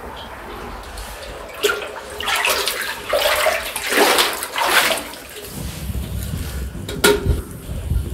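Water sloshing and splashing around the legs of someone wading thigh-deep through cave water, in irregular surges from about a second and a half in to about five seconds in. Then a low steady rumble, with a single sharp snap about seven seconds in.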